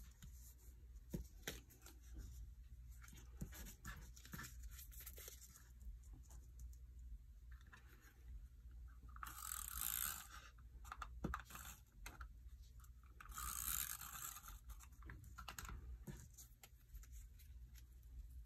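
Cardstock being handled and pressed onto a scrapbook page, with light taps and paper rustles. About halfway through come two rasping strokes, a few seconds apart, of a dry-adhesive tape runner drawn along the paper.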